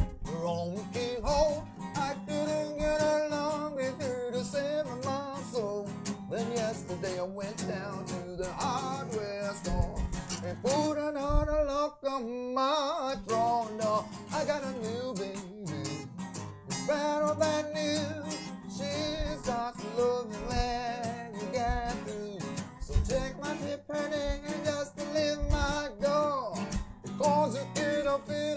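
Blues band playing an instrumental passage of a blues song, with a guitar and drums.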